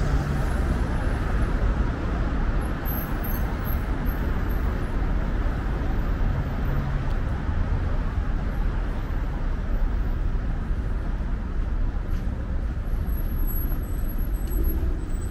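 Steady road traffic noise of a busy city street, with vehicles passing continuously.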